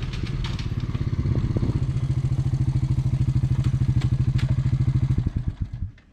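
A small vehicle engine running with an even, fast pulsing beat, then stopping about five and a half seconds in.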